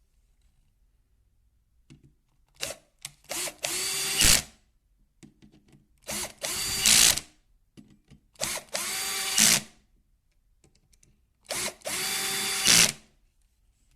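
Makita BO4550 orbital finishing sander switched on in four short runs of about a second each, its motor whine rising as it spins up and stopping each time, with a few brief blips between the runs.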